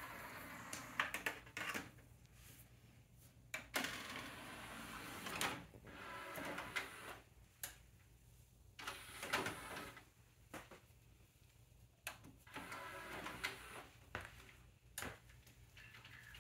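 Pioneer LaserDisc player's disc tray sliding shut, then the mechanism clicking and whirring in short stretches as it loads the disc and starts it playing. Sharp clicks come every second or two throughout.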